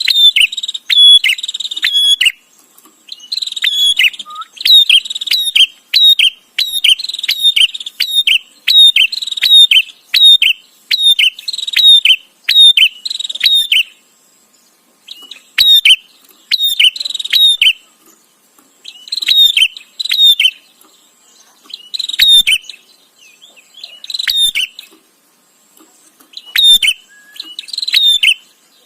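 Prinia (prenjak) chattering: loud bursts of rapid, clicking, scolding notes, each burst lasting one to two seconds with short pauses between, repeated over and over.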